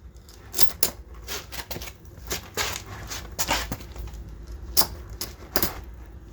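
Metal snow chain links clinking and rattling in irregular sharp clicks as the chain is handled and hooked up, over a low steady rumble.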